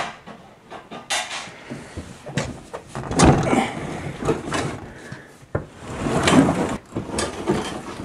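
Handling noises at a stainless-steel dishwasher: a string of knocks and clicks with two longer scraping rubs about three and six seconds in, as hands work under the machine and at its door.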